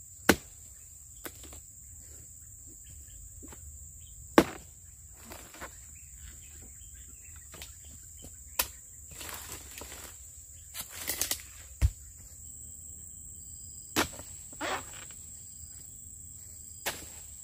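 Long-handled oil palm harvesting chisel (dodos) chopping into palm frond bases: sharp single chops every few seconds, about six loud ones, with rustling between some of them. A steady high-pitched insect drone runs underneath.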